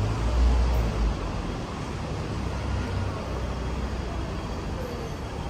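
Night-time city street ambience: a steady hum of distant traffic with a low rumble that eases after about a second.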